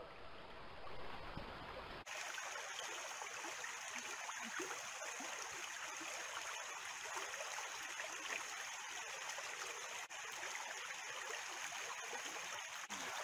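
Faint, steady trickle of water running along a small muddy irrigation channel beside flooded rice paddies, starting about two seconds in.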